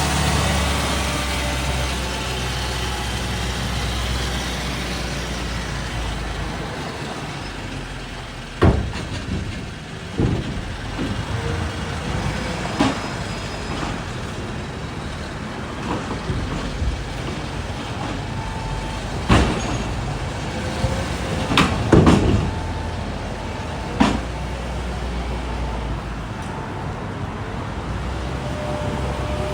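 Caterpillar grapple bucket loader's diesel engine running, dropping to a lower hum partway through, with a series of sharp, heavy knocks and clanks: about seven separate hits, two of them close together near the middle.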